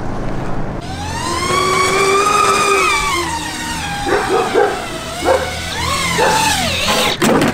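Electric motors and propellers of a foam RC jet spooling up with a rising whine. The pitch then wavers up and down as the throttle is worked during a low first flight.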